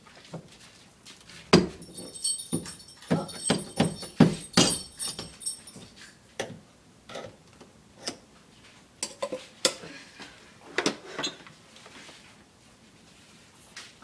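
Irregular knocks and clicks of metal door hardware being worked with hand tools while a doorknob is being removed, with a spell of metallic jingling a couple of seconds in.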